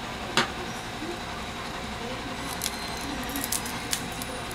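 Small clicks and ticks of a phone's metal midframe and broken display fragments being handled, with one sharper click about half a second in, over a steady background hiss.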